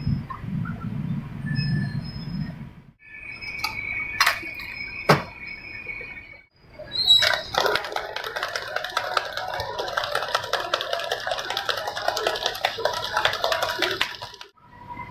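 Drink shaker being shaken hard by hand, its ice rattling fast and continuously for about seven seconds in the second half. Before it come a low steady hum and then a steady high tone with two sharp clicks.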